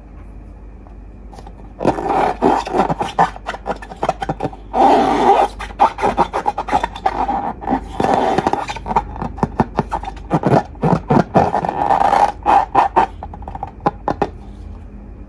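Slime being handled and squished, a dense run of sticky clicks and wet crackles. It starts about two seconds in and stops about a second before the end.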